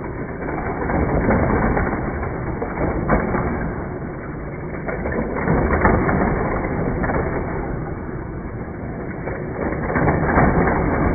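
Die-cast toy cars rattling around a plastic Hot Wheels loop track, with the motorized booster's spinning wheels whirring in the middle. The clatter swells and fades every few seconds as cars come round through the booster, with occasional sharp clicks.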